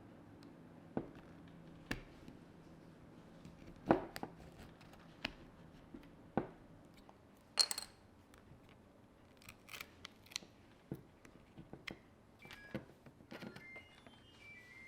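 Scattered light clicks, taps and knocks of small hard tools and parts being handled on a work surface, two of them louder about four and eight seconds in. A few short beep-like tones come in near the end.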